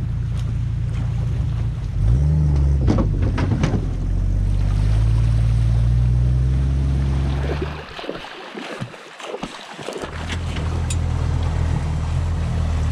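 Boat's outboard motor running, its note rising about two seconds in as the boat drives forward off the trailer. The engine sound drops out briefly around eight seconds in, then returns steadier and lower, with wind and water noise over it.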